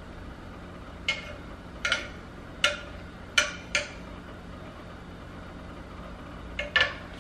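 A kitchen knife knocking sharply on the board while mincing fresh garlic: a handful of separate chops about a second apart, a pause of a few seconds, then two quick ones near the end.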